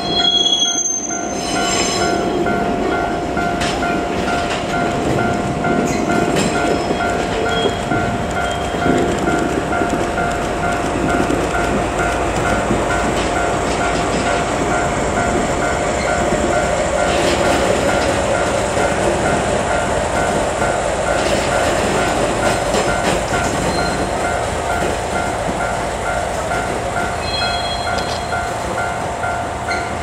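485-series 'Resort Express Yu' carriages moved by a DE10 diesel locomotive rolling slowly past, with steady wheel rumble and clatter. A Japanese level crossing warning bell rings in an even, repeating pulse over the train noise.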